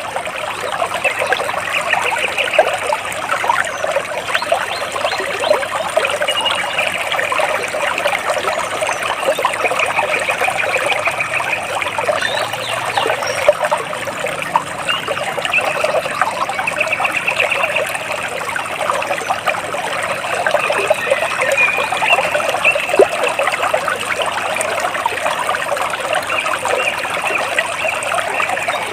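Water splashing and trickling steadily, with a bird's short rapid trills breaking in over it every few seconds.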